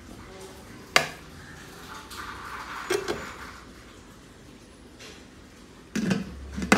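Glass lid and metal cookware on a large preheated pot used as a stovetop oven: a sharp knock about a second in, scraping and clinks as a metal cake tin of batter is set down on the ring inside, then two loud clanks near the end as the glass lid goes back on.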